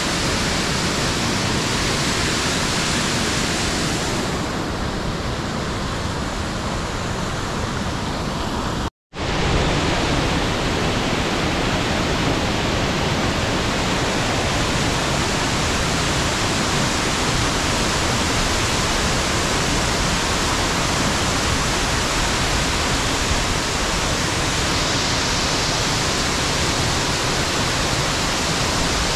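Steady rush of water from a waterfall, an even noise with no letup. It cuts out for an instant about nine seconds in and then resumes unchanged.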